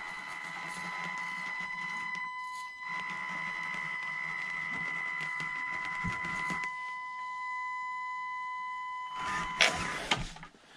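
Mini RC crawler's small electric motor and gearbox whining steadily as it climbs a steep board. The whine stops about nine seconds in and is followed by a brief clatter.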